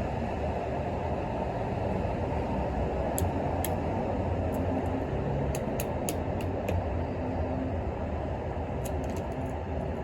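Steady low rumble of background noise, with scattered sharp taps and clicks about three seconds in, around the middle and near the end.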